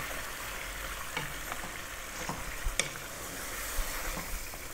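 A wooden spoon stirs and breaks up canned whole plum tomatoes among chunks of browned lamb in a pot, over a steady sizzle from the hot pan. The spoon knocks against the pot a few times.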